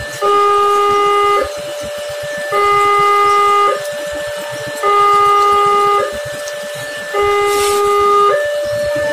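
Wantech electronic railway level-crossing alarm sounding, a lower tone and a higher tone alternating, each held about a second, in a steady repeating cycle: the warning that the gates are down and a train is approaching.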